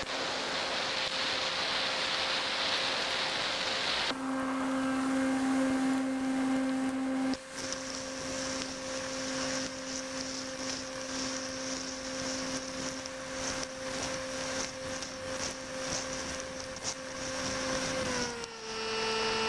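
Steady hum of a small motor behind wind and rain noise on the microphone. A loud rushing hiss covers it for the first four seconds or so, then the motor tone stands out. Near the end the tone dips in pitch for about a second and rises back.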